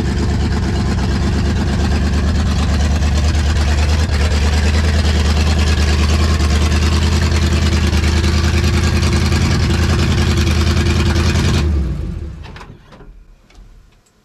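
Engine of a GM car running steadily, started again on a swapped-in starter, then shut off near the end, the sound dying away over a second or so.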